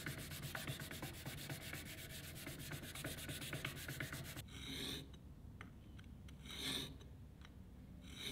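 A sanding stick of abrasive paper is rubbed fast back and forth on a steel spade bit, many short strokes a second, sharpening it; this stops about four seconds in. Then come three slower single strokes of the bit drawn across a diamond sharpening plate, about two seconds apart.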